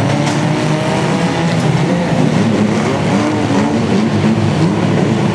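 Several small speedway race cars' engines racing around a dirt-track bend. Their overlapping engine notes rise and fall as the drivers ease off and accelerate.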